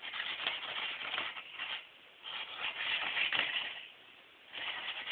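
A cat pawing and scratching inside an empty cardboard tissue box, trying to hook out a cap. It makes three bursts of scraping and rustling on the cardboard, with short pauses between them.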